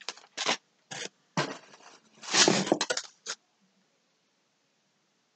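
Rustling and handling noise as yarn cakes are taken from an open cardboard shipping box: a few short rustles, then a longer, louder rustle about two seconds in, stopping after about three seconds.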